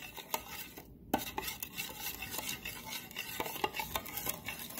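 Metal spoon stirring a liquid vinaigrette of olive oil, lemon juice, salt and pepper in a plastic measuring jug, with many quick clicks of the spoon against the jug's sides.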